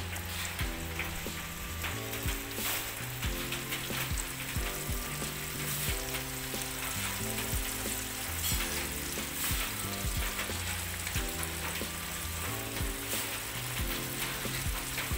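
Flour-coated chicken pieces deep-frying in hot oil in a wok: a steady sizzle with many small pops. Low notes of background music run underneath.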